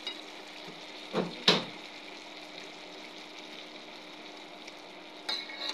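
Chicken curry frying in a pan with a steady sizzle. It is broken by two short knocks about a second and a half in, the second the loudest, and a quick run of clicks near the end.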